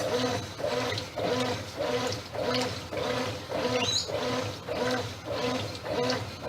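Brastemp 8 kg top-loading washing machine agitating a full tub, with a rhythmic hum-and-slosh pulse about twice a second. The owner blames the machine's airplane-turbine-like noise on a dried-out drum bearing that needs replacing.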